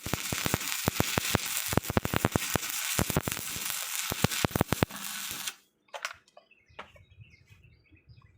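Stick-welding arc crackling and sizzling with rapid sharp pops as a bead is run, cutting off suddenly about five and a half seconds in when the arc is broken. A few faint ticks follow.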